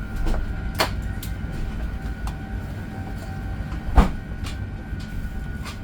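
Airliner cabin noise inside an Airbus A380: a steady low rumble with a faint steady whine, broken by several sharp clicks and one louder knock about four seconds in.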